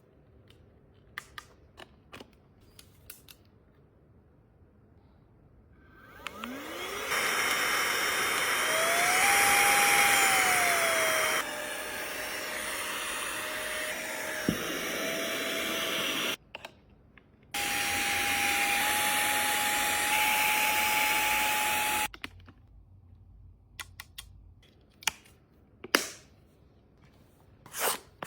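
A small electric motor spins up with a rising whine and runs for about fifteen seconds, changing pitch suddenly a few times and breaking off briefly, then cuts off. Light clicks and taps of handling come before and after it.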